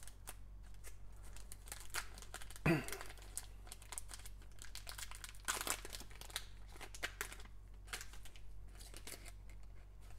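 Foil trading-card pack crinkling and tearing as it is ripped open by gloved hands, a rapid run of small crackles with a brief falling squeak about three seconds in.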